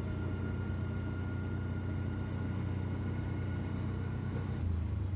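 Auto-rickshaw engine running steadily under way, a low rumble heard from the passenger seat, with a faint high whine that stops near the end as the rumble grows a little louder.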